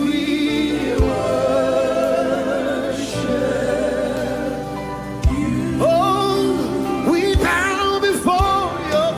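A live gospel worship song: a choir and voices sing long held notes with vibrato over music, with a few short low thumps.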